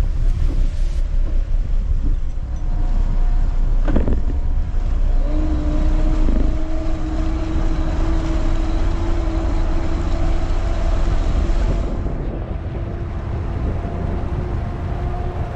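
Twin outboard motors of a towboat running under way, with heavy wind rumble on the microphone. A steady engine hum comes in about five seconds in.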